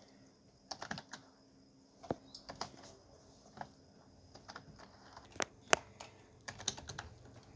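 Computer keyboard keys being tapped: scattered, irregular clicks in small groups with pauses between.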